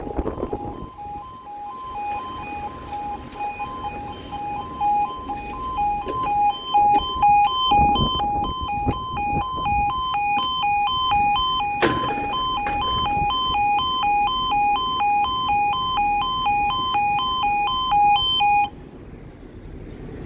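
UK level crossing warning alarm: a two-tone yodel alternating steadily between a lower and a higher pitch while the barriers come down, cutting off suddenly near the end once the barriers are fully lowered.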